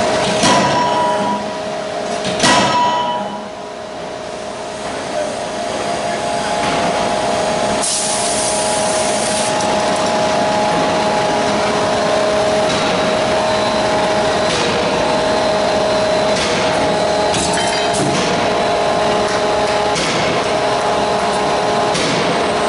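CNC forging hammer striking a hot workpiece twice in the first few seconds, the second blow the louder. Afterwards the hammer's machinery runs with a steady hum, with a short hiss about eight seconds in and a few faint knocks.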